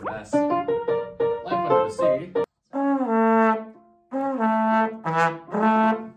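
Trombone and grand piano playing together: quick short notes at first, then long held trombone notes that slide up into pitch. The music stops abruptly about two and a half seconds in and picks up again moments later.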